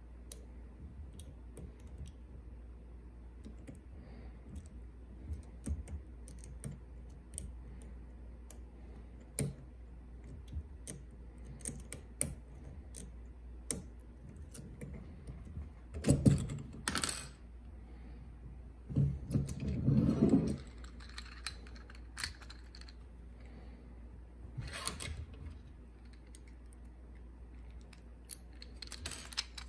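Light metallic clicks and ticks of a pick and tension wrench working the pins of a Paclock PL410-PRO padlock, a 7-pin lock with spool and serrated pins. Two louder spells of knocking and rattling come about halfway through.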